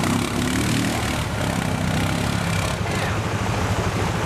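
ATV engine running as the four-wheeler ploughs through a shallow creek, its tyres throwing up splashing water.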